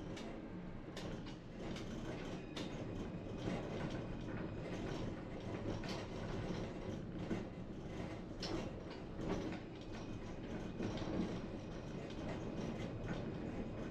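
Tram rolling along the rails with a steady low rumble, its wheels giving irregular clicks and knocks over the track.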